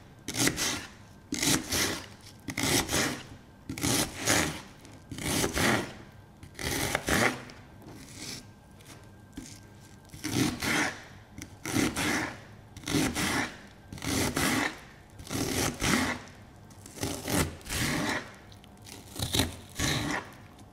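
Kitchen knife chopping an onion on a cutting board: crisp, rhythmic cuts about three every two seconds, each one crunching through the onion and tapping the board, with a short lull a little before the middle.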